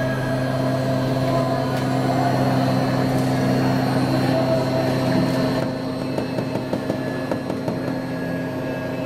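CNC router's axis drives running the gantry and spindle head back to machine home: a steady mechanical hum with a higher whine, the whine dropping away a little past halfway through.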